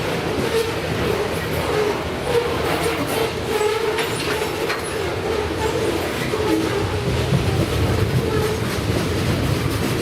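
BNSF freight train passing, its cars rolling by with steady wheel rumble and clatter on the rails and a wavering mid-pitched tone over it.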